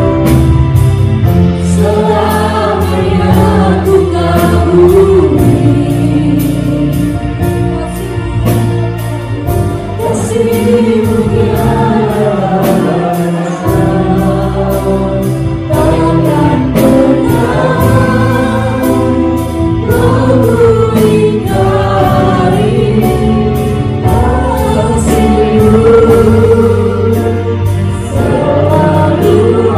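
Live worship band playing a slow Indonesian worship song: a female lead with backing singers over keyboard, bass and drum kit, with a steady hi-hat beat.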